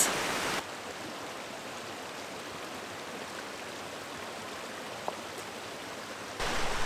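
Shallow mountain creek running steadily over stones and fallen branches.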